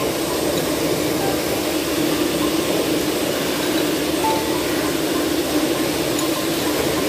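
Steady mechanical whirring and hum of a running electric motor, even and unchanging throughout.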